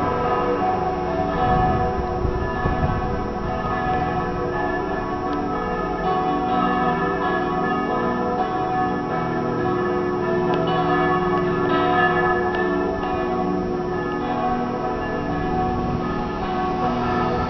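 Church bells pealing from a stone church tower: several bells ringing together, their overlapping tones struck over and over.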